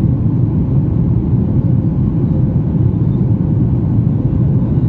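Steady low rumble of a jet airliner in flight, its engines and rushing air heard from inside the passenger cabin, with a faint steady hum above it.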